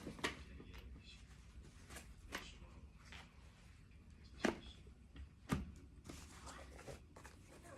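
Embroidery kit materials being handled: light rustling with a few sharp taps and clicks, the loudest two about four and a half and five and a half seconds in.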